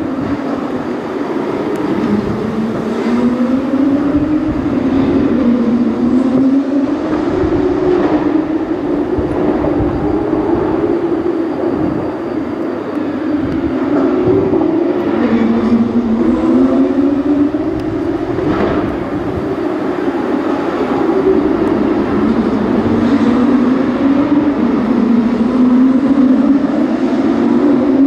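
Engines running continuously, their pitch sliding slowly up and down every few seconds, with a few brief louder sweeps.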